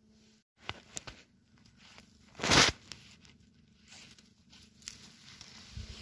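Handling of a freshly pulled bay bolete and the moss and forest litter at its base: a few light crackles, then one short, loud tearing rustle about two and a half seconds in, and fainter rustles after.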